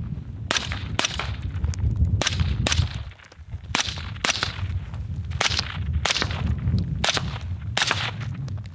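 Suppressed AR-style rifle (Type A 12.5 Contractor) fired shot after shot while the shooter walks, about two shots a second with a brief pause about three seconds in.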